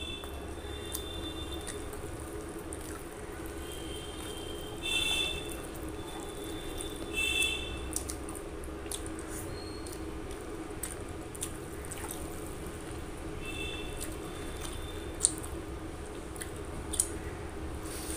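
Wet squishing of rice and curry gravy being mixed and squeezed by hand and eaten in big mouthfuls, with a few louder squelches about five and seven seconds in and sharp clicks near the end, over a steady low hum.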